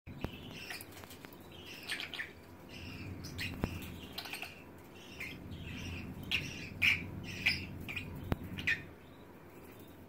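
Lovebirds chirping in a string of short, high calls as the pair mates, loudest about seven seconds in and stopping shortly before the end. A few sharp clicks and a low steady hum lie beneath.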